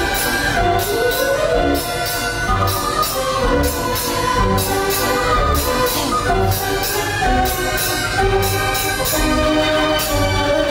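Orchestral music with a steady percussion beat.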